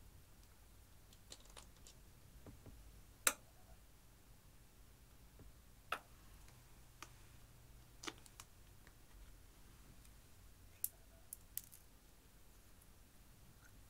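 Scattered light plastic clicks and taps from handling makeup packaging, a glitter gel tube and an eyeshadow palette case. The sharpest click comes about three seconds in, and three quick ones come close together near the end.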